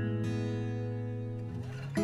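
Background music: acoustic guitar chords ringing and slowly fading, with a new chord strummed at the very end.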